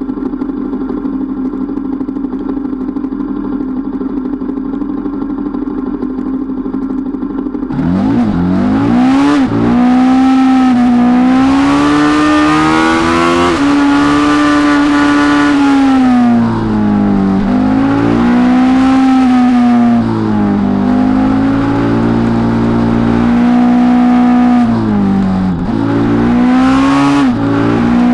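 Motorcycle engine idling steadily. Then, after a sudden cut about eight seconds in, it runs louder under way, its pitch climbing and dropping back again and again as it accelerates and changes gear.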